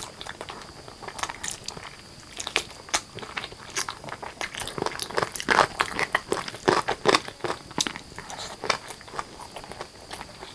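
Close-miked eating of chicken curry and rice: a person biting and chewing, with many quick sharp mouth clicks and crunches, busiest in the middle.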